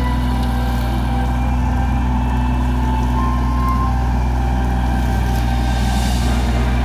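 Kubota 24-horsepower compact tractor's diesel engine running steadily as the tractor drives across the field pulling a ploughing implement.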